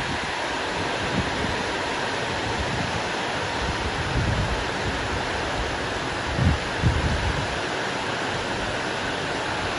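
Heavy rain pouring down in a steady, even hiss, with a few brief low bumps of wind on the microphone around four and seven seconds in.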